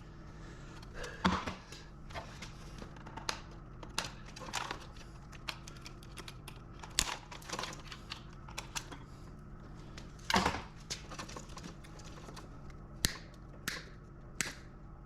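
Irregular clicks, knocks and rattles from the metal parts and wiring of an equipment control panel being handled and taken apart by hand, over a steady low hum. The loudest knocks come about a second in and about ten seconds in.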